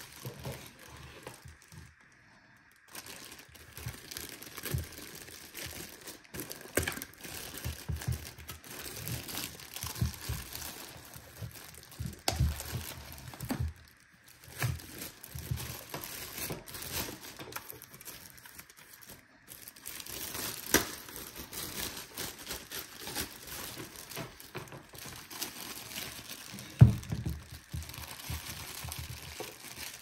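Clear plastic packaging bag crinkling and rustling as it is handled and pulled off a handheld vacuum cleaner, in irregular spells with short pauses. There is a dull thump near the end.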